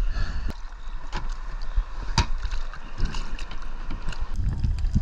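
Wind buffeting the microphone over the sea around a kayak, with a few sharp clicks and knocks of gear being handled on the hull, the strongest about two seconds in. The low wind rumble grows near the end.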